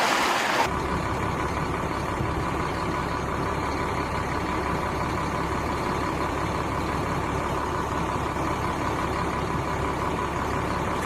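A steady low rumble, like a running engine, begins abruptly under a second in, cutting off a rushing-water noise.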